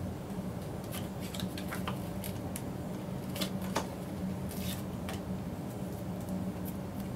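Scattered small clicks and light rustles of hands working a sticker sheet, putting stickers on a plastic Beyblade stadium, over a steady low hum.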